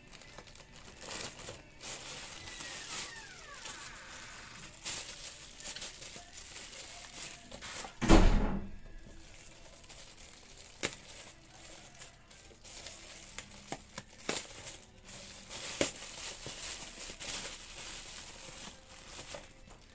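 Plastic courier mailer and thin plastic bag crinkling and rustling in irregular bursts as they are torn open and pulled off a small box, with a few sharp ticks. One loud thump about eight seconds in.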